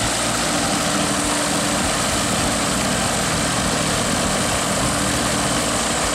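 Cessna 182's SMA diesel engine and propeller running steadily at low power, a constant drone.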